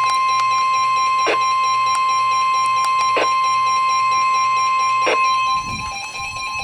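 NOAA Weather Radio 1050 Hz alert tone: a single loud, steady beep that signals a warning broadcast is about to follow. It cuts off about five and a half seconds in, and quieter sound follows.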